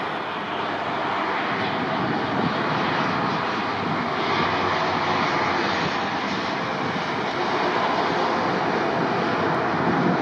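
Airbus A319's jet engines during the landing rollout: a steady, loud rush of engine noise with faint steady tones through it, slowly growing louder as the airliner passes.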